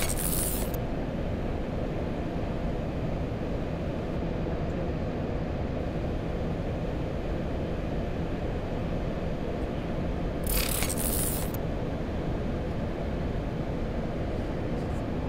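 Steady low rumble of a Boeing 737-800 flight deck in flight, air and engine noise. A short hissing transition sound effect comes at the start and another about ten and a half seconds in.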